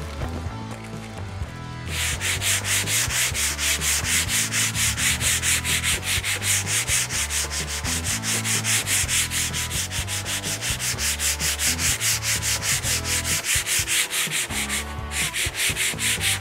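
Hand sanding of a lightly rusted steel sheet with grit-60 emery cloth: rapid back-and-forth rubbing strokes, about five a second, starting about two seconds in, with a short break near the end.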